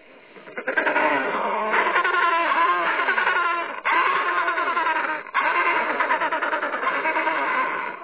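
African penguins calling: a harsh, wavering rasping that comes in three long stretches, broken briefly about four and about five seconds in.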